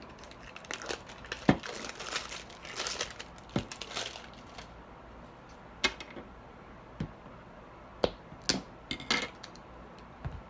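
Plastic toy packaging crinkling and rustling, with sharp plastic clicks and taps, as an L.O.L. Surprise glam glitter ball and its wrappers are worked open. The crinkling is densest in the first half, then gives way to a few separate clicks.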